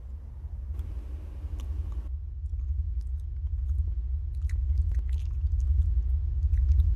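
Wet chewing and smacking of people eating cherry pie straight off the plate with their mouths, heard as scattered clicks from about two seconds in, over a low rumble that grows steadily louder.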